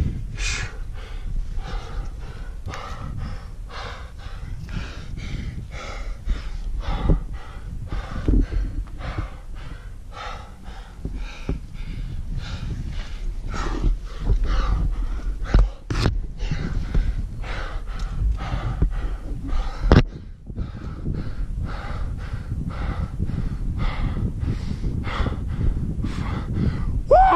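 A climber breathing hard and fast, about two heavy breaths a second, from exertion at high altitude under a heavy pack. Two sharp clicks stand out, about two thirds of the way through.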